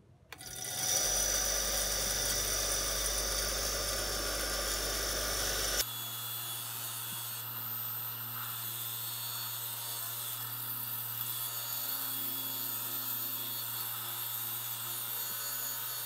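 Bosch bench grinder running, its brass wire wheel scrubbing rust off the steel head of a hammer pressed against it: a steady motor hum under a harsh scratchy brushing. It comes in about half a second in and changes abruptly to a slightly quieter run about six seconds in.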